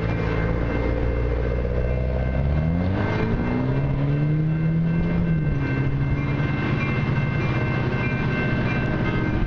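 EMD SD40-2 diesel locomotives, two-stroke V16s, running as they approach, with a steady low rumble; about two and a half seconds in the engine note climbs as the throttle comes up, then holds.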